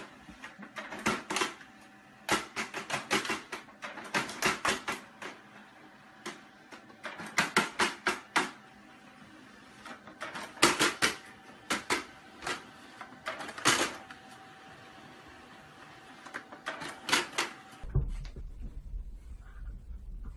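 Office multifunction printer working, giving groups of rapid, typewriter-like clicking every second or two over a faint steady whine. The clicking stops near the end, leaving a low hum.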